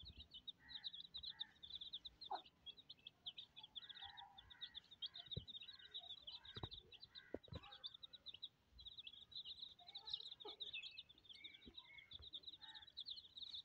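A brood of Aseel chicks peeping: a continuous stream of rapid, high, short peeps, with a few lower, softer calls from the hen mixed in.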